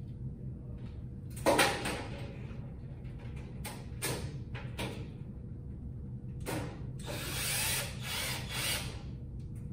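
Cordless drill driving self-drilling, self-tapping screws into the sheet-metal pan of a fluorescent troffer. It runs in short bursts, the loudest about a second and a half in, then a longer run of about two seconds near the end.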